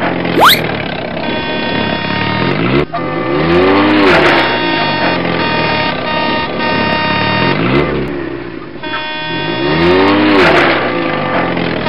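Car engines passing by, each one's pitch rising and then falling as it goes past, twice, over steady held tones; a quick rising whistle about half a second in.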